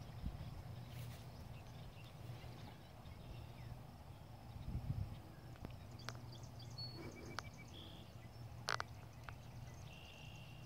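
Faint rustling of a Bernese Mountain Dog moving and sniffing in tall grass, over a low steady rumble, with a few sharp clicks in the second half. Short high chirps come in about two-thirds through and again near the end.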